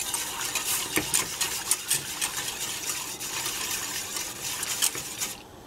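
Wire balloon whisk beating milk in a stainless steel saucepan: a fast, continuous clatter and scrape of the wires against the pan, which stops just before the end.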